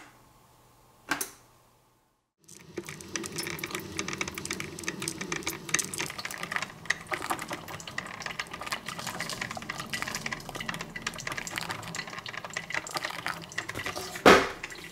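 Mr. Coffee drip coffee maker brewing: hot water spitting and dripping onto ground coffee in the paper filter basket, a steady crackling, bubbling hiss. A click about a second in as the brew is started, and a loud knock near the end as the brewer's lid is handled.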